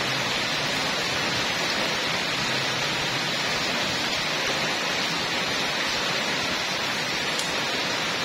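Steady, even hiss of background noise with no distinct events, and a faint tick about seven seconds in.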